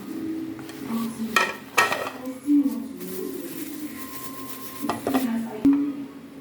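Hard objects being handled: several sharp clatters and knocks, about five in all, over a low steady background.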